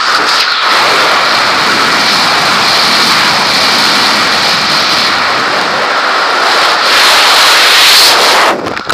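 Loud steady rush of airflow over a helmet camera in wingsuit flight. It cuts off sharply near the end as the flyer's own parachute opens and his airspeed falls.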